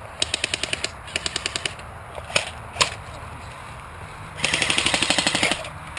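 Airsoft guns firing on full auto: two short rapid bursts, two single shots, then a longer burst of about a second near the end.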